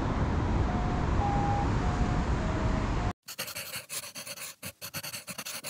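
Steady wind noise on the microphone, heaviest in the low end, with a few faint short high notes over it. About three seconds in it cuts off suddenly and a rapid run of scratchy clicks follows, a pen-writing sound effect.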